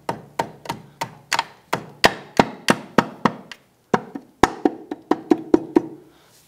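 A run of about twenty sharp knocks on a Honda Goldwing GL1800's clutch cover, roughly three to four a second with a short pause about halfway. The later knocks ring briefly. The cover is being struck to break it free of its gasket once its eleven bolts are out.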